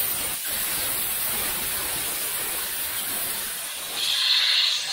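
Compressed air hissing steadily as it is blown under a rubber handlebar grip to slide the grip onto the bar. The hiss grows louder and higher near the end.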